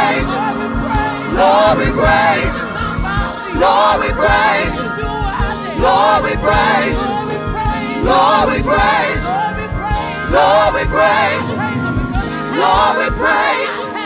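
Live gospel praise-and-worship music: a group of singers singing wavering, drawn-out phrases over instrumental backing with a steady beat.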